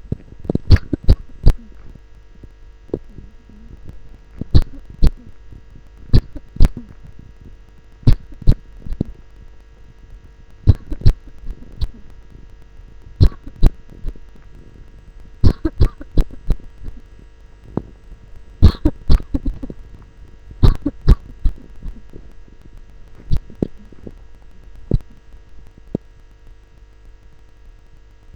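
A person coughing, picked up by a contact microphone: short coughs in groups of two or three, about every two seconds, over a steady electrical hum. The coughs stop a couple of seconds before the end.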